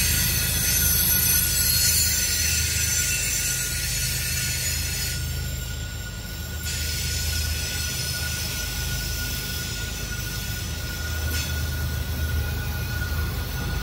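Covered hopper cars of a freight grain train rolling past: a steady low rumble of wheels on rail with a thin, steady high-pitched wheel squeal over it.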